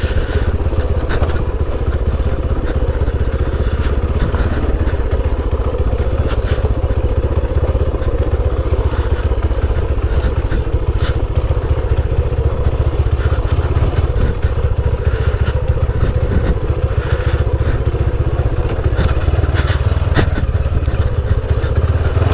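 A Honda C90 motorcycle's small single-cylinder engine running steadily while ridden along a rough off-road lane, under a continuous low rumble. Scattered short knocks and rattles come from the bike going over the uneven ground.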